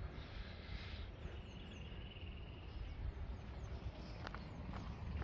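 Wind rumbling on the microphone, with small birds calling: faint high chirps and one high trill about a second in, lasting about two seconds.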